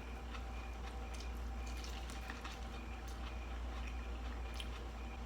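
Soft eating sounds: scattered small wet clicks of chewing and handling food, over a steady low hum.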